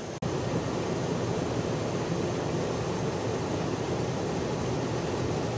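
Steady rushing noise of airflow and engines heard from inside a KC-10 Extender tanker in flight. It breaks off for an instant just after the start, then carries on.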